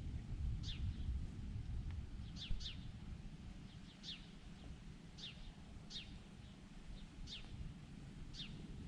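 A bird repeating a short, high chirp that slides downward in pitch, about once a second, over a steady low rumble.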